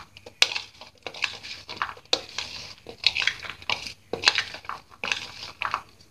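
Metal spoon stirring a chunky mix of chopped onion, tomato, boiled potato and chickpeas in a mixing bowl: irregular scrapes and clinks of the spoon against the bowl, one or two a second.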